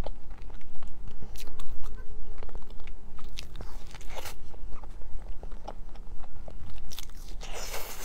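Close-miked chewing of layered chocolate crepe cake, with many small mouth clicks and smacks. A fresh bite comes about halfway through, and another loud burst comes near the end.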